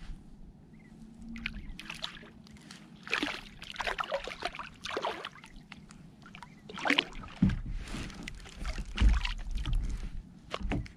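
Sea water splashing and sloshing in irregular bursts as a hooked codling is brought to the surface beside a kayak and lifted out, with a few heavier thumps in the second half.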